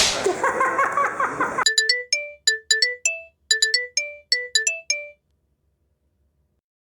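A burst of dense noise gives way, about a second and a half in, to a short electronic jingle: a quick melody of bright, bell-like notes, like a ringtone. It stops about five seconds in.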